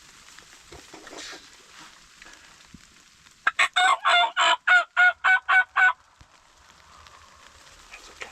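Wild turkey yelping: a run of about ten loud, evenly spaced yelps, roughly four a second, lasting about two and a half seconds.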